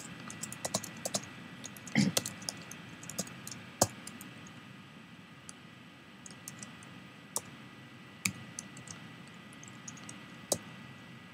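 Typing on a computer keyboard: irregular keystrokes, quick and close together at first, then sparser and more scattered, with a few louder key presses.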